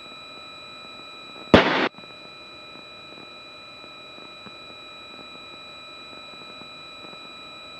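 Steady hiss and hum of an aircraft headset intercom, broken about one and a half seconds in by a sharp click and a short, loud burst of static that cuts off abruptly.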